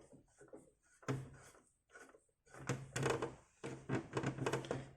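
Small screws and parts being handled while fitting a floppy drive into an Amiga 500's plastic case: scattered light clicks and knocks, busier in the second half.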